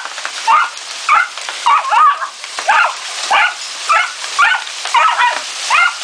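A puggle whining and yelping in fright at hail, short high cries that bend up and down in pitch, repeating about twice a second, over a steady hiss of falling hail.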